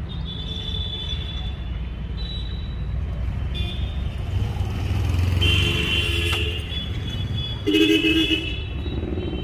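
Vehicle horns honking over a steady low rumble of engines: a honk of about a second roughly five and a half seconds in and a shorter one near eight seconds, with fainter toots earlier.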